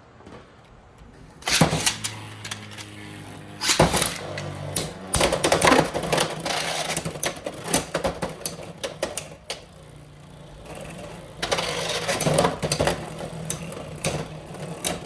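Two Beyblade X tops, Black Shell and Wizard Rod, launched into a plastic stadium about a second and a half in. They spin with a steady hum and clash again and again with rattling, clattering hits.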